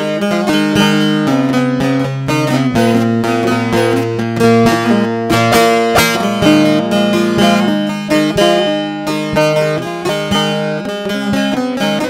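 Instrumental Turkish folk music on plucked strings: quick runs of picked notes over changing bass notes, with no singing.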